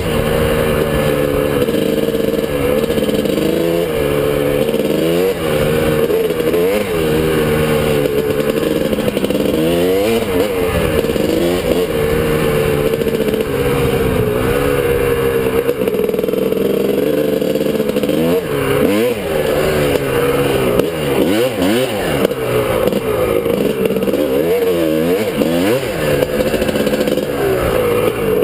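1997 Suzuki RM250's two-stroke single-cylinder engine being ridden hard along a dirt trail, revving up and down over and over as the throttle is opened and closed, with quick rises and drops in pitch.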